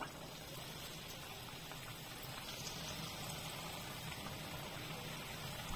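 Chakli dough sizzling and bubbling as it fries in hot oil: a quiet, steady crackle.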